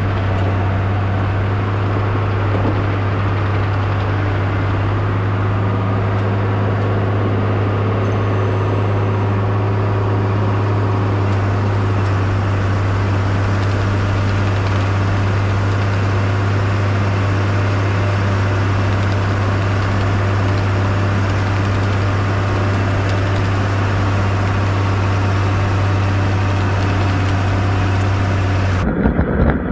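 1998 Bombardier BR-160 snowcat's engine running steadily with a constant low hum as the machine pushes snow with its front blade.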